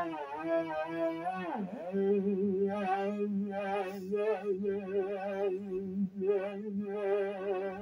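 Theremin playing a wavering, sustained tone with vibrato; about a second and a half in the pitch swoops sharply down and back up, then settles into a held note.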